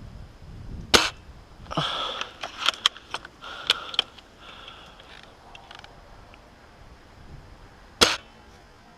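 Spring-powered L96 airsoft sniper rifle firing twice, two sharp cracks about seven seconds apart, with a run of clicks and rattles between them as the bolt is worked.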